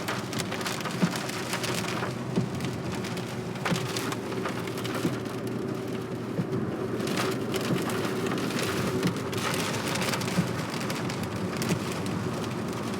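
Rain pattering on a car's windshield and roof, heard from inside the moving car, with many small drop ticks over a steady low hum of the car.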